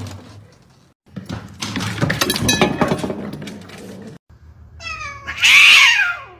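A cat meowing: one long, loud call falling in pitch near the end. Before it comes a few seconds of clattering and knocking.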